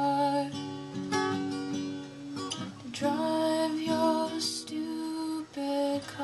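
Music played on a plucked string instrument, with held notes and chords changing about every second.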